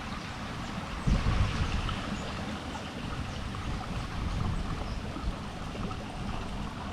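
Wind buffeting the microphone in irregular low gusts, the strongest about a second in, over a steady rush of water.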